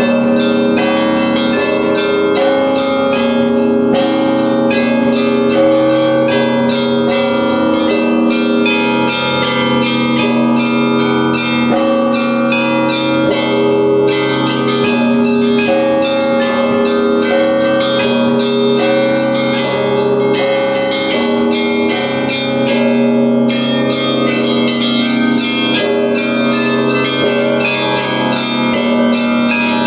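Church bells rung together in a continuous peal: many quick strikes ring out over the sustained tones of deeper bells, with no pause.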